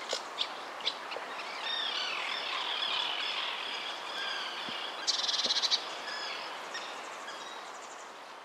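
Countryside ambience of birds chirping and calling over a steady background hiss, with a fast rattling trill about five seconds in; the whole bed slowly fades toward the end.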